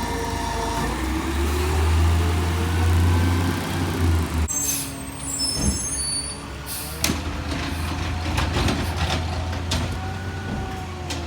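Garbage truck's diesel engine running with a heavy low drone that swells for a few seconds, then a sudden change to high brake squeal and air hiss, followed by scattered knocks and clanks.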